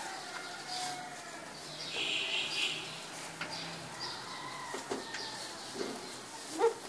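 Small birds chirping repeatedly around a goat pen, over the rustle of goats pulling hay from a rack. A short, sharp call near the end is the loudest sound.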